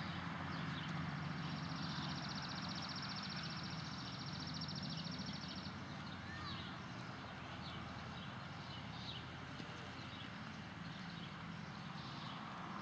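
Hoofbeats of an American Quarter Horse gelding, over a steady low hum. A fast, even high trill runs from about a second in until about six seconds, and short high chirps follow.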